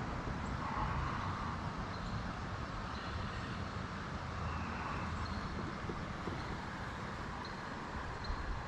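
Steady rushing outdoor noise on a creek with a low rumble underneath.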